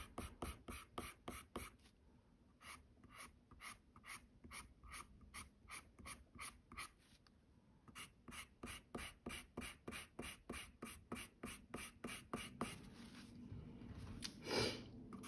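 Faint scratching of a colorless blender pencil stroked quickly back and forth over colored pencil on toned mixed-media paper, about four or five strokes a second, smoothing the fur, with two short pauses. A louder rustle comes near the end.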